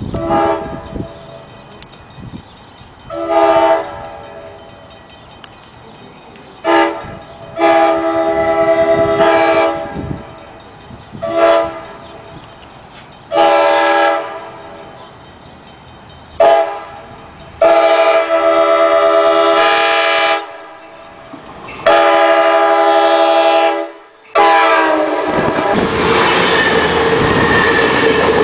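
Amtrak Pacific Surfliner train's multi-note horn sounding a series of short and long blasts as it approaches. About three seconds before the end, the train rolls past close by with loud wheel and rail noise.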